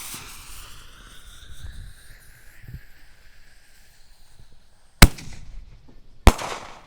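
A one-inch mini firework shell: a fading hiss from the burning fuse, then a sharp bang as the lift charge fires it out of the tube, and about a second and a half later a second sharp bang as the shell breaks in the air.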